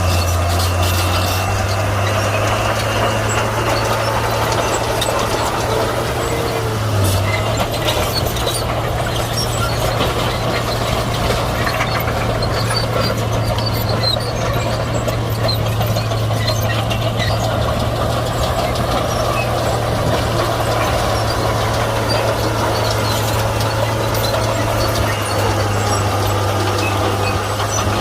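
Komatsu D41P crawler bulldozer's diesel engine running steadily at working revs, a constant low drone with scattered light clicks and clanks over it.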